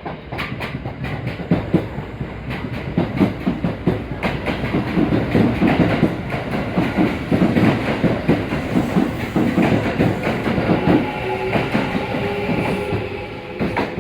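Kintetsu limited express electric train pulling into the platform: a heavy rumble with wheels clacking over rail joints, building to its loudest midway. Steady whining tones come in near the end as it slows.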